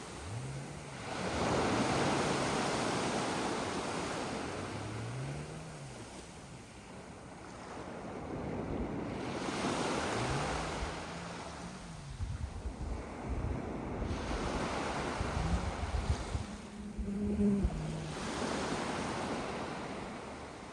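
Sea waves breaking on a pebbly beach, each wave swelling up and washing back over several seconds, with wind gusting on the microphone.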